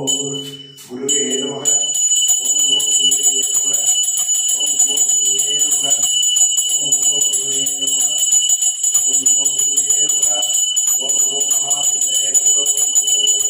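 A brass puja hand bell rung without a break, giving a steady high ringing. Under it, a male voice chants a mantra in short repeated phrases.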